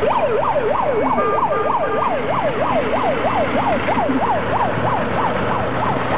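A siren yelping, its pitch sweeping rapidly up and down about three times a second and growing fainter in the second half, over a low engine rumble from passing vehicles.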